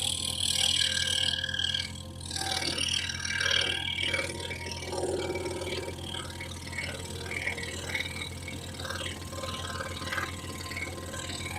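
Excalibur EX21 scroll saw running with a very fine blade cutting a piece of oak flooring: a steady motor hum and rapid blade strokes under an uneven scraping of the cut. The fine blade grabs the wood in places and wanders.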